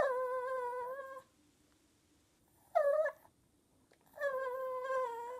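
Small Pomchi (Pomeranian–Chihuahua mix) dog giving high, drawn-out whining calls: a long one at the start, a short one a little before three seconds in, and another long one near the end.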